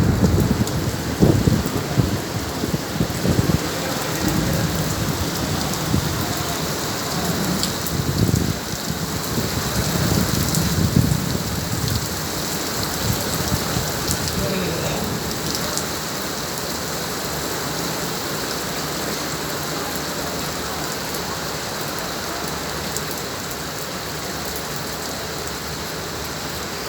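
Steady rain falling, with thunder rumbling low through about the first twelve seconds and then dying away, leaving the even hiss of the rain.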